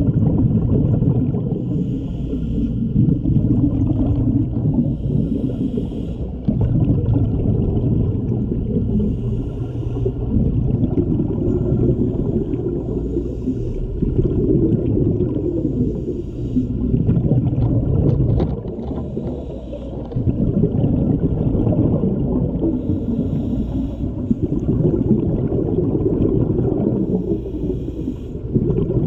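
Scuba diver breathing through a regulator underwater: a hiss on each inhale and a burst of rumbling exhaust bubbles on each exhale, a breath every three to four seconds.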